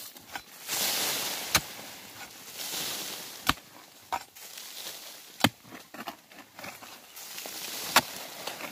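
Short-handled hoe chopping into soil, about five sharp strikes at uneven intervals, with loosened earth and roots rustling and scraping between the blows.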